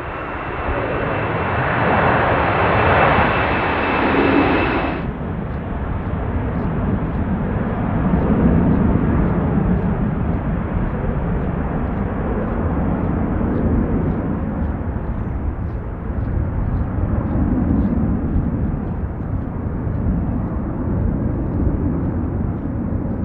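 General Electric CF6 turbofan engines of a Boeing 747-400 at climb-out thrust: a loud roar with a steady high whine. About five seconds in, the sound changes abruptly to a lower rumbling roar that swells and eases every few seconds.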